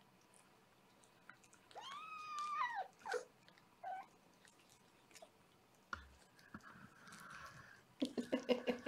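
Young kitten mewing: one drawn-out meow about two seconds in that rises and then falls, then a couple of short squeaks. Near the end comes a quick run of small clicks and scuffles.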